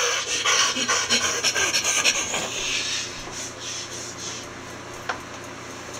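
Cloth rubbing and rustling as plush hand puppets are handled, a scratchy noise with small crackles that fades out after about three seconds. A single click comes about five seconds in, over a faint steady hum.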